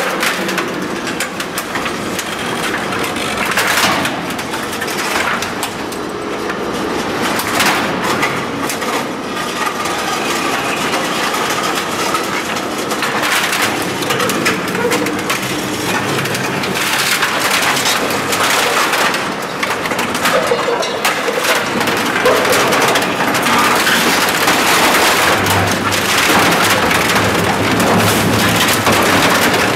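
Komar EM-40G auger compactor's screw auger crushing a treadmill and a wooden pallet: continuous grinding with frequent cracks and snaps of splintering wood and breaking plastic.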